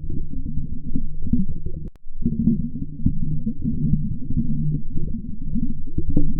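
Muffled, gurgling low rumble from an underwater voice-changer effect, with everything above a few hundred hertz cut away. It drops out briefly about two seconds in, then carries on.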